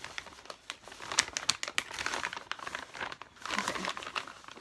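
Packaging crinkling and rustling in irregular bursts as items are rummaged through and pulled out of a beauty-product haul.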